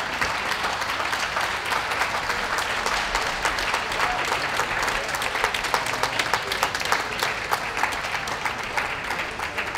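Ringside crowd applauding: dense, steady clapping that eases a little near the end.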